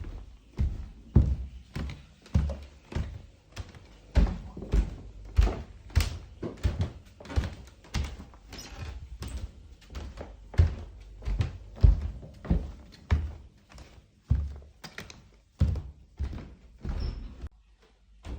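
Footsteps walking at a steady pace, dull thudding steps about one and a half a second, pausing briefly near the end.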